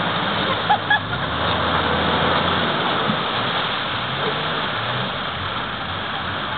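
Off-road 4x4 engines revving as the vehicles churn through a muddy river crossing, under a steady rush of splashing water from the spinning wheels. The engine note rises and falls, climbing about four seconds in.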